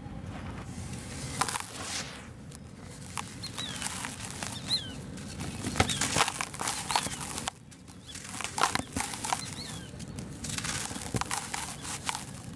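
Dry sand-and-cement mix being crumbled and rubbed by hand: a gritty crackling and crunching of crumbs and powder, with many small clicks as bits break and fall. It drops away briefly about seven and a half seconds in, then resumes.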